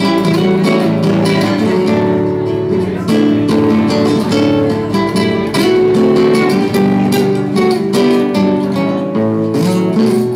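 Two nylon-string classical guitars played together live: one strummed in a steady rhythm while the other picks notes over it.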